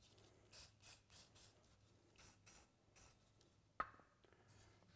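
A few short, faint hisses of an aerosol lubricant can being sprayed, then one sharp metallic clink with a brief ring near the end as a hose fitting is handled.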